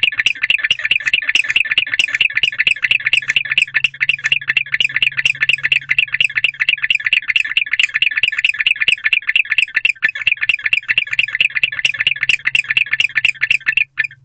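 Male barn owl inside an owl box giving a rapid, steady series of high chirps, several a second, which stop abruptly near the end.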